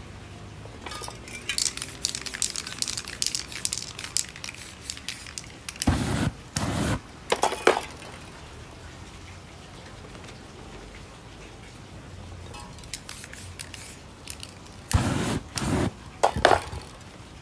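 A run of crackly scratches as fingertips drag through wet spray paint on the board. Later come short bursts of aerosol spray in two groups, one about six seconds in and another near the end.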